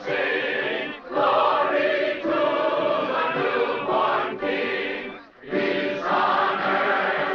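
A crowd of men and women singing a Christmas carol together in full voice. The singing comes in phrases, with short breaks about a second in and again a little past five seconds.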